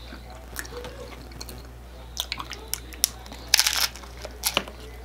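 Crisp hard-shell taco being bitten into and crunched, a few small crackles first and the loudest crunch about three and a half seconds in, then another shortly after.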